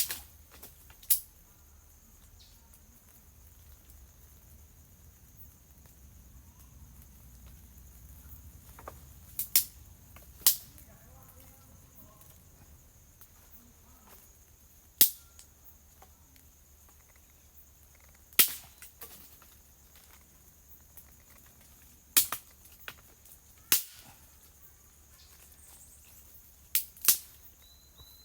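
Sharp cracks or snaps, about ten of them spread unevenly, some in quick pairs, over a steady high-pitched insect drone.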